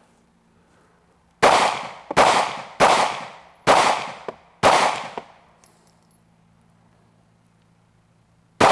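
Glock 43 9mm subcompact pistol firing five shots in quick succession, under a second apart, each followed by a short ringing echo, then a single further shot near the end.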